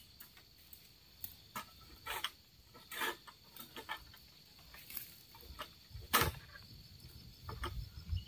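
Faint steady chirring of insects, with scattered light rustles and knocks and one sharper crack about six seconds in.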